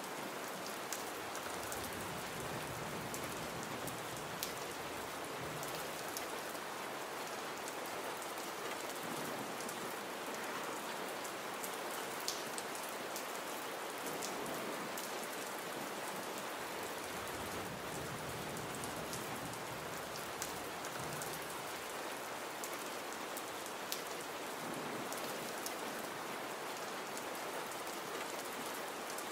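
Gentle rain falling steadily, without thunder: an even hiss with scattered sharp drop ticks.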